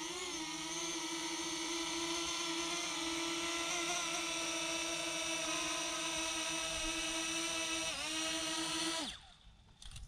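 Parrot Anafi quadcopter's propellers and motors humming steadily in a hover close by, then dropping in pitch and cutting off about nine seconds in as the drone is landed by hand with the throttle stick held down.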